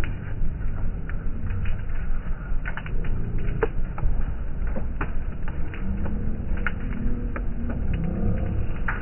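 Large bonfire of stacked wood and dried stalks burning, with a steady low rumble and irregular crackles and pops.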